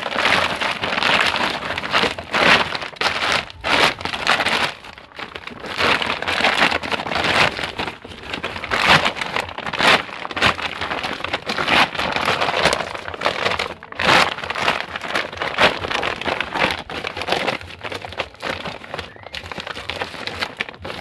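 Woven plastic rice sack being folded and handled, its weave crinkling and rustling in irregular bursts.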